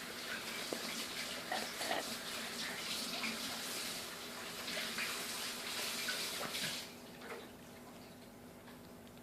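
Close-up chewing: a dense run of wet smacking and small crunching clicks, which stops about seven seconds in and leaves only a faint hiss.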